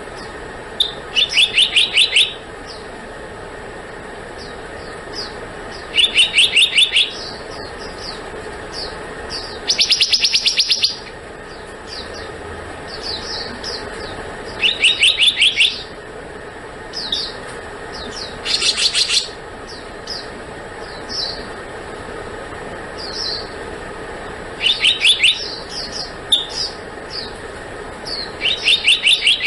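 Black-naped monarch calling: about seven short, rapid runs of five to seven clear, high notes, spaced a few seconds apart, with single short call notes in between. A steady low background hiss runs underneath.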